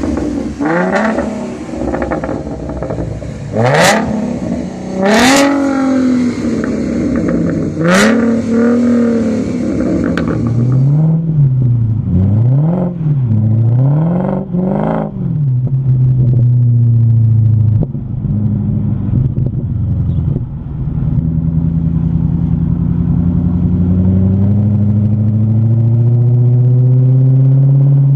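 A 2013 Ford Mustang V6 with a Roush aftermarket exhaust being free-revved in repeated blips. Then a BMW 545i's V8 through a Magnaflow exhaust revs three times quickly, settles, and pulls with a steadily rising note as the car accelerates.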